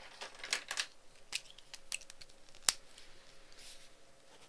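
Close-miked pen and paper handling: a scatter of light clicks and short rustles, with one sharper click about two and a half seconds in.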